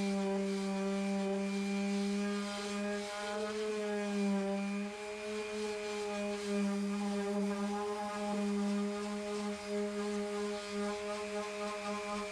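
Electric sander running steadily on the model boat hull, a buzzing hum whose pitch sags briefly a few seconds in as it is pressed into the work.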